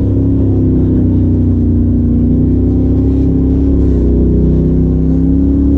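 Polaris RZR Turbo side-by-side's engine running steadily at moderate revs: a constant drone whose pitch rises and falls only slightly.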